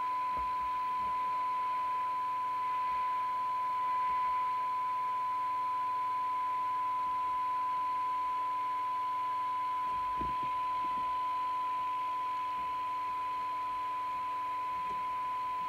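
A Midland 3001 CB radio's speaker putting out a steady, fairly high test tone over a light hiss: the receiver demodulating a tone-modulated signal from a signal generator while its IF transformers are aligned.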